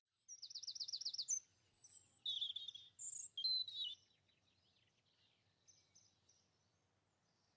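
Small garden songbirds singing. A quick run of about eight repeated high notes is followed by short trills and chirps; the song mostly stops after about four seconds, leaving a few faint chirps.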